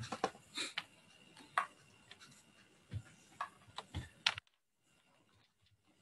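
Scattered computer mouse clicks and light desk knocks, a few each second, then the sound cuts off abruptly to near silence about four and a half seconds in.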